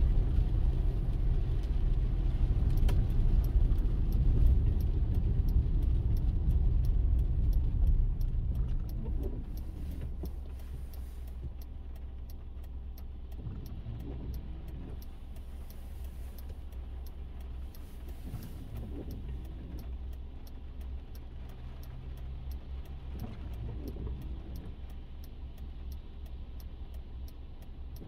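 Car interior sound from a dashcam: a loud low road-and-tyre rumble that falls away about eight seconds in as the car slows, leaving a quieter steady low engine hum at idle or crawl, with faint short sounds about every five seconds.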